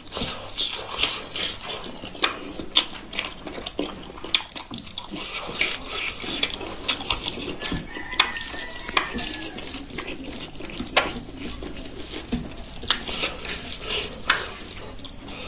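Close-up open-mouthed chewing and lip-smacking of a man eating rice and smoked pork by hand, with many short wet smacks and clicks at an irregular pace over a steady high hiss.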